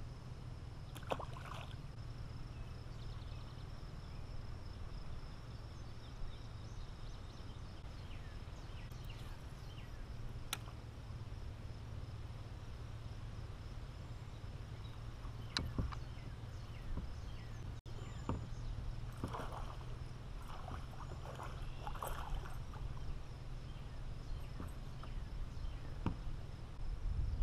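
Open-water sound from a fishing kayak on a calm pond: a steady low rumble with a faint high hum. There are a few sharp clicks and knocks, and a run of splashing in the latter part as a hooked bass is brought up to the kayak.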